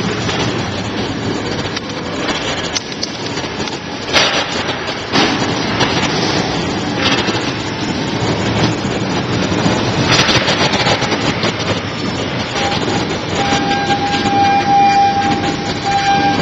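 Fruit-handling machinery running: a steady mechanical clatter with occasional sharp knocks, joined in the last few seconds by a steady high whine.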